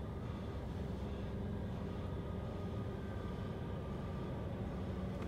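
Steady low engine hum with a faint high whine, heard from inside a car through the glass.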